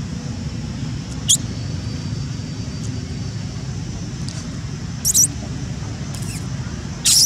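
Brief, very high-pitched squeaks of a baby macaque, three times: one falling squeak about a second in, a quick double squeak after about five seconds, and the loudest near the end. A steady low rumble runs underneath.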